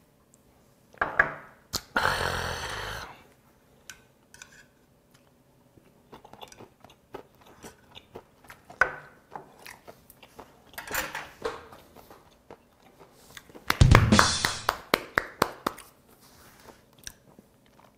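Close-up eating sounds: a man swallows a shot of soju and gives a loud breathy exhale, then chews steamed shrimp roe and meat with small wet clicks. A second loud breath comes about fourteen seconds in, among more chewing.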